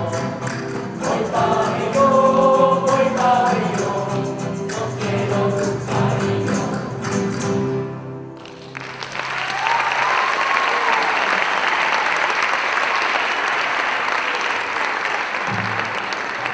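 A folk ensemble of strummed acoustic guitars with a mixed choir sings the closing phrase of a song, and the music stops about eight seconds in. The audience then applauds steadily.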